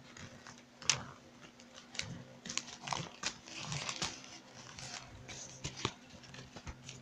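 Paper rustling and crinkling as a notebook is handled and leafed through, with scattered light clicks and knocks, over a faint steady hum.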